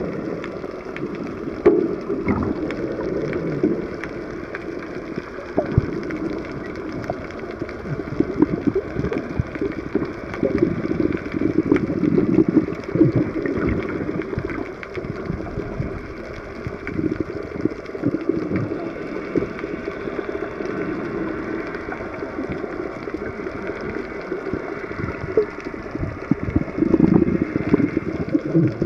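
Muffled underwater noise picked up by a camera filming below the surface: a low, churning rush of moving water with irregular swells and faint crackles.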